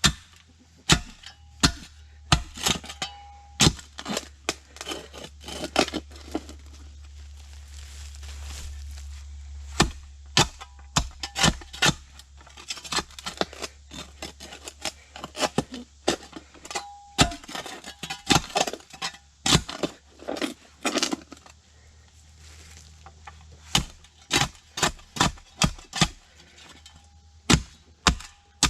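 Steel spade chopping into rocky clay soil in a post hole: a string of sharp, irregular strikes and scrapes as the blade hits stones, some in quick flurries.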